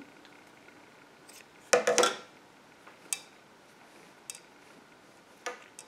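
Scissors snipping through a strand of fuzzy yarn about two seconds in, followed by a few faint sharp clicks.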